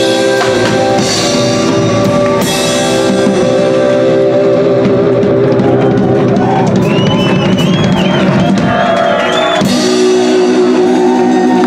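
Rock'n'roll band playing live and loud: electric guitar chords over a drum kit, with cymbal crashes several times.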